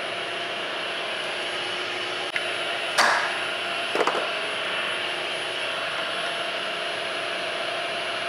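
Milling machine spindle running steadily with a 1/8-inch corner rounding end mill, taking a radius off the edge of a steel bar. A sharp crack about three seconds in, with lighter clicks a second before and after.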